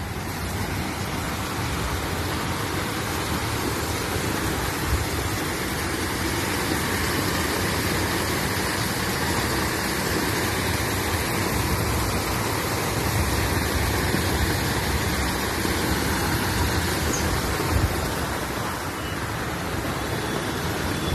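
Several small fountain jets splashing steadily into a water trough: a continuous rushing hiss of falling water.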